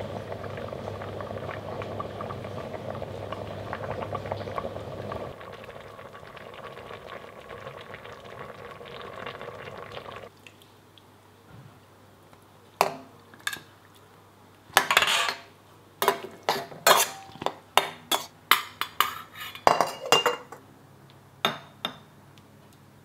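A pot of green tomato chutney bubbling steadily at a simmer for about ten seconds. Then a metal spoon clinks and scrapes against a stainless steel jam funnel and glass jars as the chutney is spooned in and pressed down: a quick run of sharp clinks, with one longer scrape partway through.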